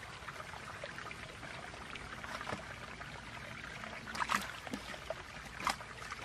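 Hand sloshing and groping in muddy water at the bottom of a dug hole, with two sharper splashes about four and five and a half seconds in.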